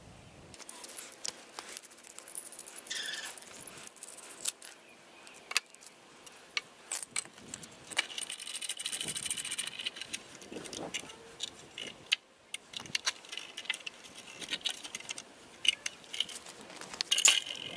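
Light metallic clinks and rattles of a steel C-clamp and a chrome trailer-hitch ball mount being handled and clamped down onto a wooden block, with a short scraping stretch about halfway through.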